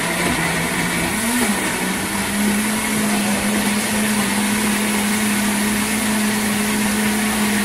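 Electric countertop blender switching on and running, blending cooked potato with kale, parsley and onion: a steady motor hum that rises a little in pitch about a second and a half in, then holds level.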